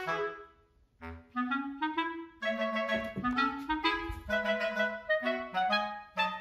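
Light background music: a woodwind melody of short, bouncing notes, with a brief pause about a second in.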